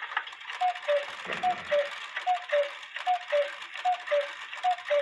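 Count-wheel cuckoo quail clock's cuckoo calling the hour: the bellows-blown pipes sound a two-note high-then-low cuckoo six times, about once every 0.8 s, with a breathy hiss and clicks from the movement.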